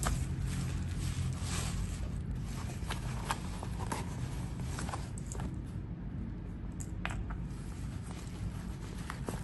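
Hands handling and rustling a fabric shopping bag, with scattered soft clicks and brief rustles over a steady low hum.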